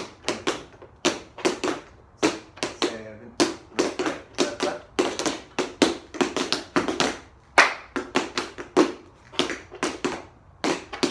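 Two dancers' tap shoes striking the floor together in quick rhythmic clusters of sharp taps, with short gaps between phrases.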